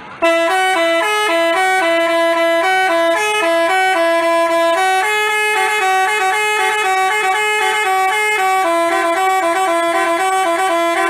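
Basuri telolet bus horn playing a quick, stepping melody of short tones that starts abruptly and runs on without a pause.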